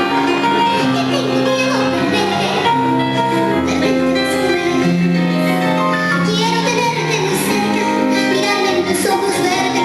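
Music with a singing voice: sustained instrumental chords under a wavering sung melody.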